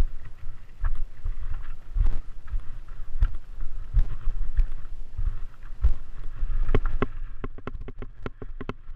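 Wind buffeting the microphone of a mountain bike riding over a climbing trail, with low rumbles and knocks and short clicking rattles from the bike over the ground. In the last two seconds the clicks come sharper and more regular.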